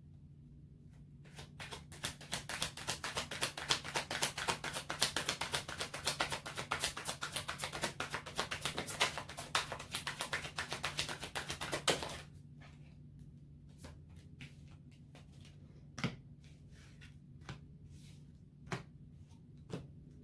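A tarot deck being shuffled by hand, a fast dense patter of card flicks for about ten seconds, then it stops and a few separate soft snaps follow as single cards are drawn from the deck and laid down.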